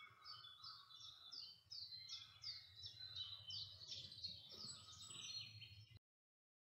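Faint songbird singing in woodland: a run of short, repeated falling notes, about three a second, over a light low rumble. It cuts off abruptly about six seconds in.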